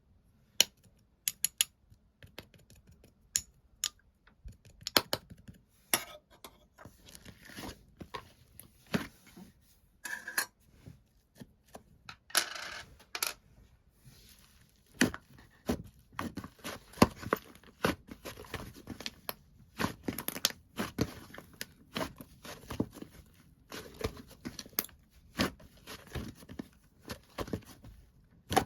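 White slime being squeezed, stretched and folded by hand, giving a scattered run of sharp sticky clicks and air-bubble pops that come thicker in the second half, with a brief tearing stretch about twelve seconds in.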